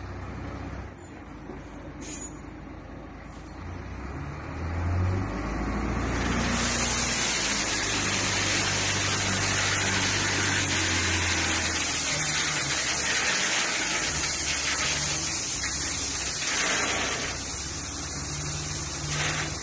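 Dump truck's diesel engine running, picking up speed about four seconds in. From about six seconds in, a loud steady rush of crushed gravel pouring out of the open tailgate onto the ground.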